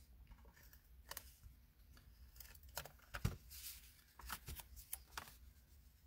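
Faint paper handling: a stamped cardstock panel being positioned and pressed down onto a card base, with a few scattered light rustles and taps.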